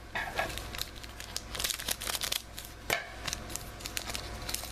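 A trading-card pack's foil wrapper being torn open and crinkled by hand, a run of quick crackles that is busiest midway through.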